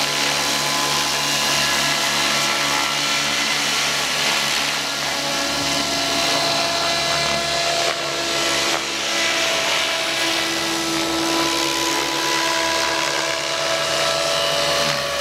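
Radio-controlled scale AS-350 Esquilo helicopter in flight, its engine and rotor running steadily with a high-pitched whine.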